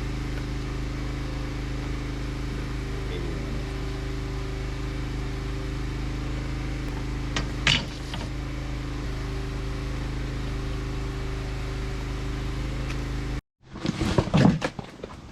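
An engine running at a steady idle, with one sharp knock about halfway through. The hum cuts off abruptly near the end, giving way to a short burst of clattering knocks.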